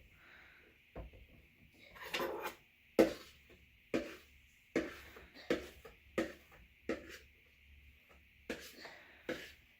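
Kitchen utensil knocking and scraping against a container as pancake batter is scooped into a measuring cup: a series of sharp knocks about once a second, the loudest about three seconds in.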